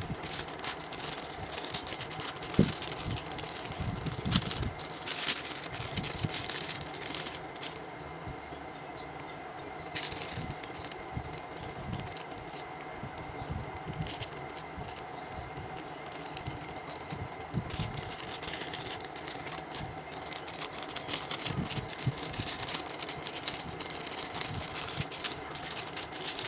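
Hands handling packaging: a clear plastic bag crinkling and rustling and a cardboard box being opened and moved, with scattered clicks and a few soft knocks.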